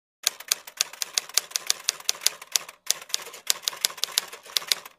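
Typewriter keys clacking in a quick, irregular run of about five strikes a second, with a short break about three seconds in: a typing sound effect.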